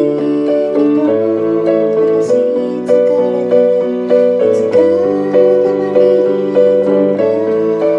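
Electronic keyboard with a piano sound playing the song's accompaniment: sustained chords, with a new chord struck evenly about every half second.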